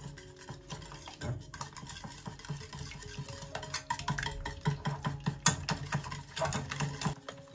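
Wire whisk beating eggs and sugar in a stainless steel saucepan: a fast, continuous clatter of the wires scraping and tapping the pan, louder in the second half.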